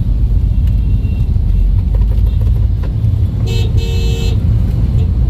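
Low road and engine rumble inside the cabin of a moving Toyota Innova Hycross with its 2.0-litre four-cylinder petrol engine. A little over three seconds in, a vehicle horn honks for about a second.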